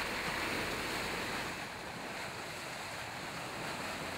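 Sea water rushing and splashing along the hull of a longline fishing vessel under way, with wind. A steady hiss that eases slightly about a second and a half in.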